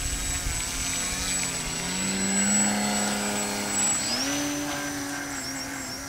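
Electric motor and propeller of a Flyzone Switch RC floatplane running at high throttle on its takeoff run across the water. It makes a steady hum with a thin high whine, and the pitch steps up about two seconds in and again about four seconds in.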